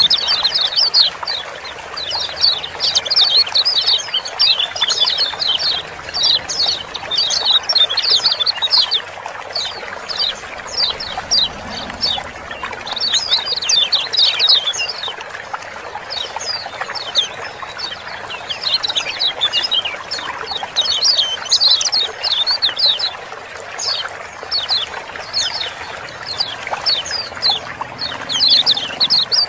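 Kecial kuning (yellow white-eyes) giving rapid, busy 'ciak-ciak' chattering calls in repeated bursts of quick, sharp, falling notes, over the steady sound of running water.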